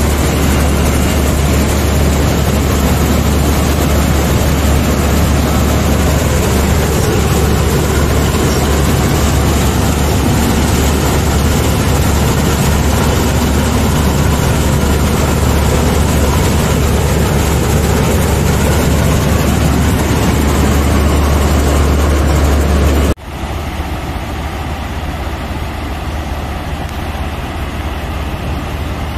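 Hind combine harvester running while cutting mung beans, heard from the operator's seat: a loud, steady drone of engine and machinery. About 23 seconds in it cuts suddenly to a quieter steady running sound as the combine unloads grain through its auger into a tractor trolley.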